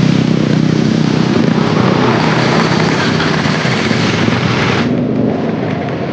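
Motor scooters of a group ride running together, engine hum under a steady rush of wind and road noise. About five seconds in the sound cuts abruptly to a duller, quieter riding sound.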